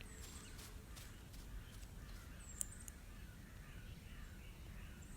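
Quiet woodland ambience: faint distant bird calls and a few thin, high chirps over a low steady rumble, with a small click about two and a half seconds in.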